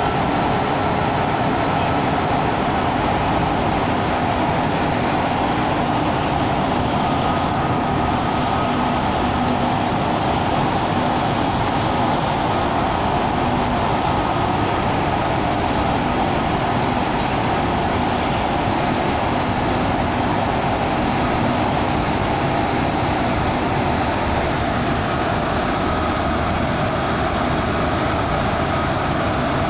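Steady interior drone of a double-decker bus driving through a road tunnel: engine and tyre noise with a faint steady whine, unchanging throughout.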